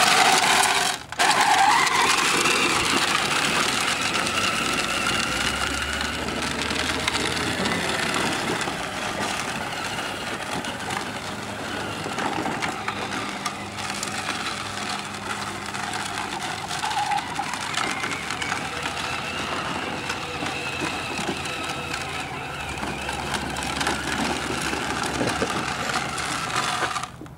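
Battery-powered children's ride-on quad running over dirt: a faint electric motor whine over the grinding of its plastic wheels, with steady outdoor noise. The sound drops out briefly about a second in.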